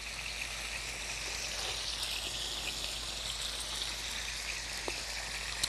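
Rolled strips of beef and prosciutto sizzling steadily as they pan-sear in hot oil, with a single light tap about five seconds in.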